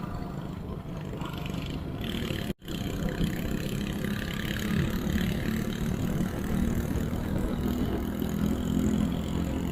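Motorcycle engine running steadily while riding. The sound cuts out completely for a split second about two and a half seconds in.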